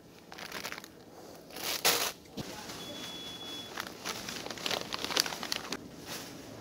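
Plastic produce bag and paper bakery bag crinkling and rustling as groceries are handled in a shopping basket, with a louder rustle about two seconds in. A faint, short high beep sounds about three seconds in.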